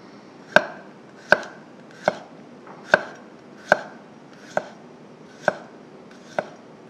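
Kitchen knife slicing a garlic clove on a wooden cutting board: eight crisp knife strikes against the board, evenly paced at a little more than one a second.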